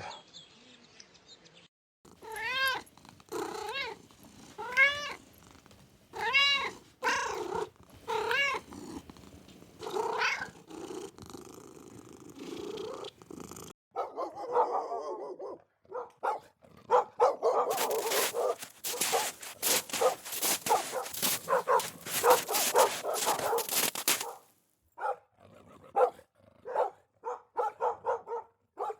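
A cat meowing over and over: pitched calls that rise and fall, about one a second. After that comes a longer stretch of rough, noisy pulsing sound.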